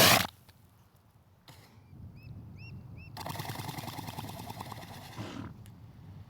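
Elephant seal calling: a short, loud blast right at the start, then a longer rough, pulsing call of about two and a half seconds starting about three seconds in.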